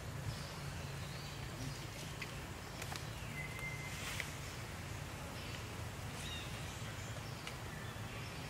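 Outdoor ambience: a steady low hum under scattered short, high chirps and whistles, with a few faint clicks.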